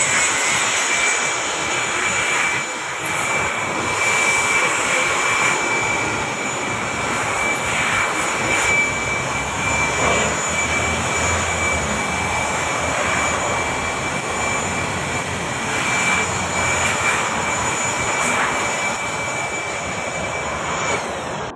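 Air blower blowing steadily to clean out the empty windshield frame: a continuous rushing hiss with a thin high whine over it.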